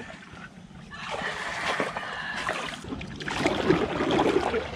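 A wooden paddle dipping and splashing in river water as a small wooden canoe is paddled. The splashing is loudest over about the last second and a half.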